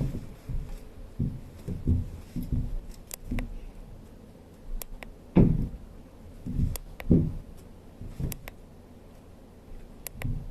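Irregular dull thumps and knocks, with about five sharp, short clicks scattered among them.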